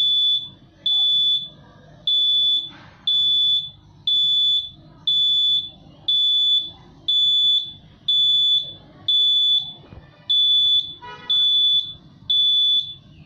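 Arduino alarm clock's buzzer sounding its alarm: a high-pitched electronic beep about half a second long, repeating evenly about once a second.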